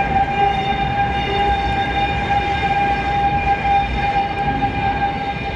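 Tram running through a tunnel, heard from on board: a low rumble of wheels on rails with a steady high-pitched whine over it.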